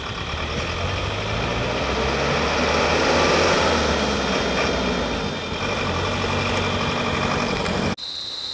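Truck engine idling with a steady low rumble. It breaks off suddenly near the end, and a steady high-pitched whine takes its place.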